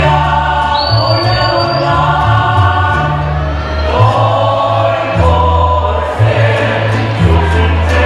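Music with several voices singing together over a bass line of long held notes that change about once a second.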